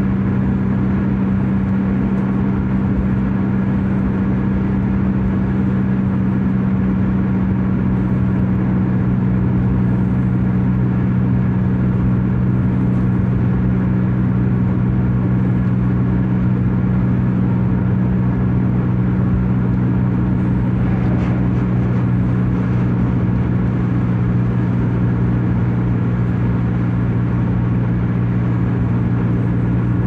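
Steady cabin noise of a car cruising on a highway, heard from inside: engine and tyre drone with a constant low hum, unchanging in level.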